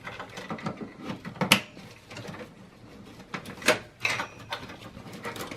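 Power supply cables and plastic connectors being handled and pushed into a PC motherboard: rustling with scattered plastic clicks, the two sharpest about one and a half seconds and near four seconds in, as connectors seat and latch.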